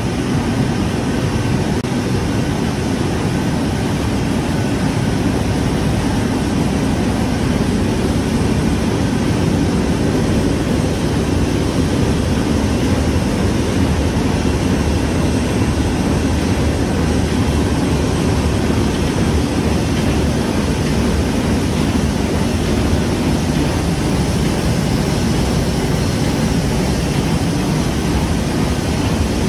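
Steady, deep machinery noise filling a Tetra Pak carton filling hall, unbroken and without any beat.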